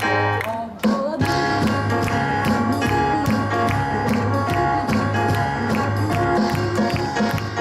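Keyboard and drum kit playing a boogie-woogie tune together. The band drops out for a moment just under a second in, and a strong drum hit brings it back.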